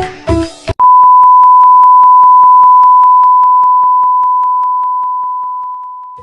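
Television colour-bar test tone: a steady, single-pitched 1 kHz beep that starts under a second in, cutting off the music, then slowly fades out over the last few seconds.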